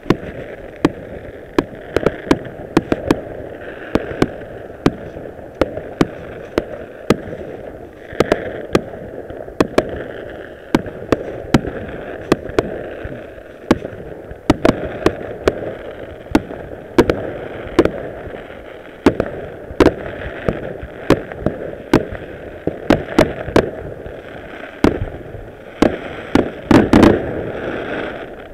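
Fireworks going off: aerial shells bursting in the sky, heard as many sharp bangs and pops in quick, irregular succession over a continuous crackling haze. A dense cluster of the loudest bangs comes near the end.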